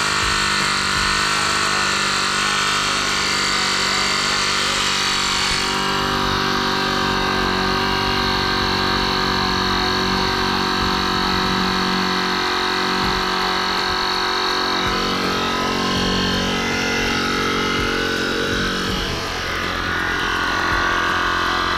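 TACKLIFE X1 cordless tire inflator's electric compressor running steadily under load, pumping air into a car tire as the pressure climbs from about 35 PSI.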